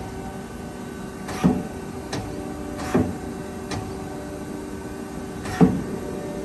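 Mazak Quick Turn 250 CNC lathe turret indexing: five sharp clunks as it steps from station to station, the loudest near the end, over the lathe's steady hum.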